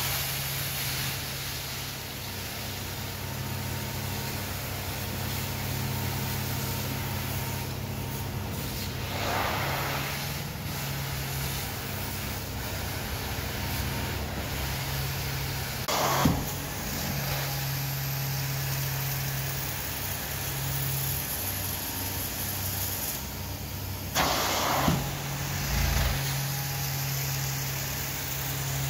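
Hot-water carpet extraction wand working over carpet: a steady machine drone and suction hiss from the extractor. The hiss surges louder three times, about every seven or eight seconds.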